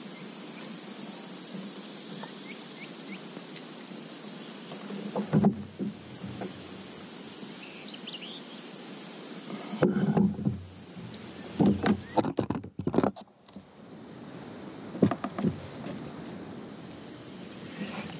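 Steady high buzz of insects, with a few dull knocks and bumps from rod and gear being handled on a plastic kayak, the loudest at about five and a half seconds, ten to twelve seconds, and fifteen seconds.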